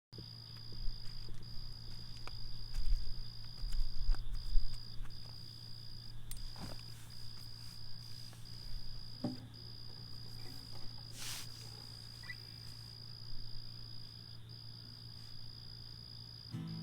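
Night chorus of calling frogs and insects: a steady high trill broken by brief gaps, over a low steady hum. Low thumps on the microphone come in the first few seconds, with a few faint knocks later.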